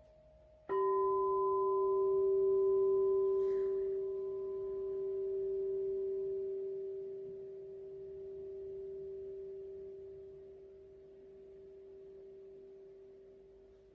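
A single struck, bell-like metal tone about a second in, a low hum-like ring with fainter higher overtones, that sustains and slowly fades with a gentle wavering swell in loudness.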